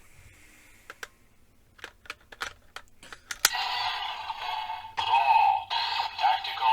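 Sharp plastic clicks as a raise buckle is fitted and worked in the DX Magnum Shooter 40X toy gun. About three and a half seconds in, the toy's speaker starts its electronic sound effects and music.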